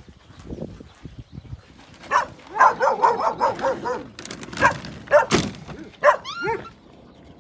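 Dogs barking and yipping in a quick run of short barks, with a few high whining yips near the end.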